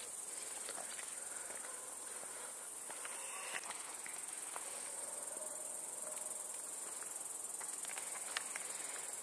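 Insects chirring steadily at a high pitch, with a few faint ticks scattered through it.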